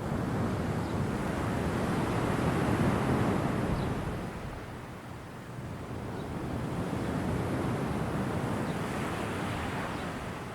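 Ocean surf: waves washing onto the shore in a steady rush of water. One swell builds and peaks in the first few seconds, eases off about five seconds in, then builds again.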